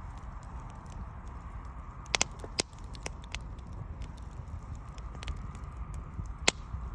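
Wood burning in a bonfire, crackling with scattered sharp pops over a low steady rumble; the loudest pops come about two seconds in, again shortly after, and once near the end.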